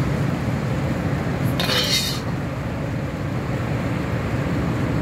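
Steady low rumble of a commercial kitchen's range and ventilation. About a second and a half in, a steel ladle scrapes and clinks briefly against a ceramic plate as food is served onto it.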